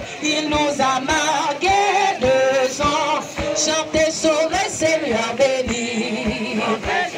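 A group of men and women singing a French hymn together, led by a woman singing into a handheld microphone, with a steady low thump about twice a second underneath.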